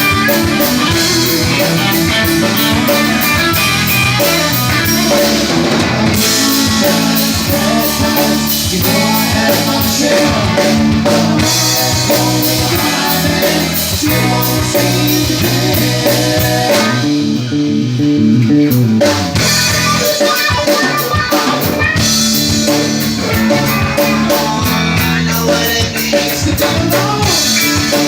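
Rock band playing live, with electric guitar and drum kit carrying a steady beat.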